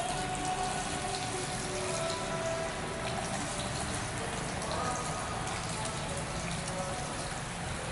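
Water spraying steadily from a handheld shower head onto a man's hair and face as they are rinsed over a shampoo basin.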